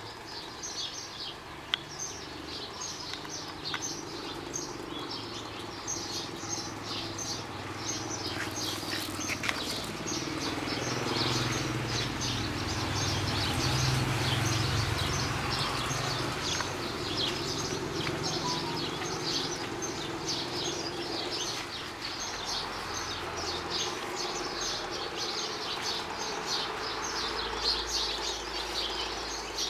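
Birds chirping over and over, many short high calls a second, with a low hum that swells in the middle and then fades.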